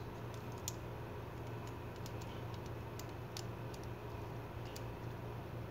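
Light, irregular metallic clicks and ticks from a Gerber MP600 multitool being handled, over a steady low hum.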